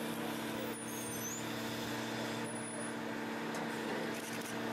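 A steady machine hum, several constant low tones over a broad hiss.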